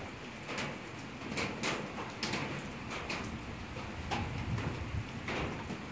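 Open wood fire burning in a metal tub fire pit in the rain: irregular crackles and pops over a steady hiss, with low rumbling gusts from about four seconds in.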